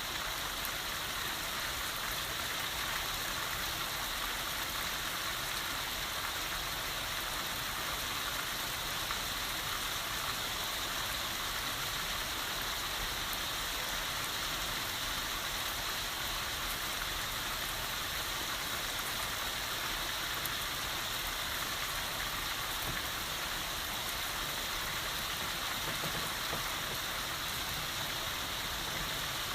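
Rain falling steadily, a continuous even hiss of drops on surfaces.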